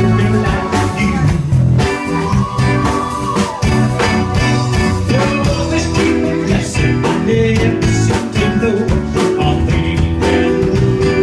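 Live band playing a bluesy rock song: electric guitar, keyboard and drums with a steady beat, and a voice singing over them.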